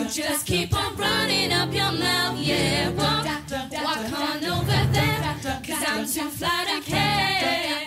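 A youth choir of mostly female voices singing a cappella into handheld microphones, with wavering sung lines over held low notes.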